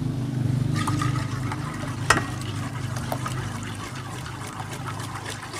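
A metal spoon stirring a thick, grainy milk-replacer mix in a stainless steel pot: wet swishing and scraping, with a sharp clink of spoon against the pot about two seconds in.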